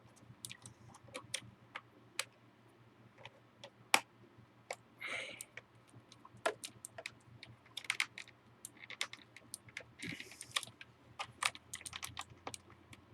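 Irregular sharp plastic clicks and a couple of brief scraping rustles as a mechanical keyboard is handled and its USB cable is pushed into the routing channel underneath.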